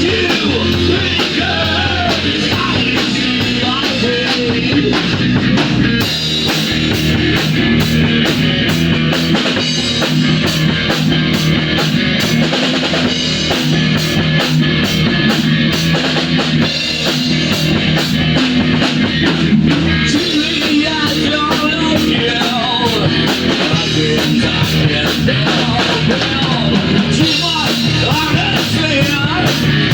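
A rock band playing live in rehearsal: guitar, bass guitar and drum kit. The full band comes in about six seconds in, with a steady cymbal beat.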